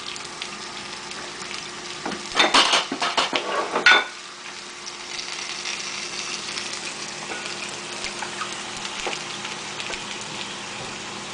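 Metal utensils clattering against a wok for about two seconds as fried food is lifted out, then hot oil sizzling steadily.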